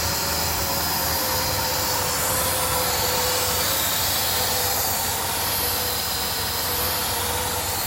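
The 1967 Chevrolet Chevelle's engine running steadily just after its first start, fed on gas poured straight in, with a steady high whine over the engine noise.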